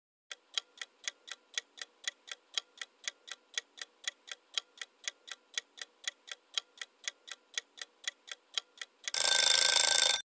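Countdown-timer sound effect: clock ticking about four times a second for roughly nine seconds, then a loud alarm buzz lasting about a second near the end, signalling that the answer time is up.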